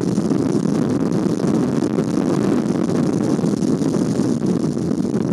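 Heavy rainstorm with wind: a steady, loud noise of rain and wind with no let-up.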